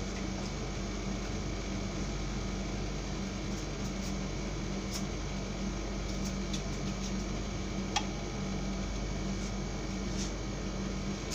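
Steady hum of a room air conditioner, with a few faint taps and one sharper click about eight seconds in as food is cut by hand with a knife.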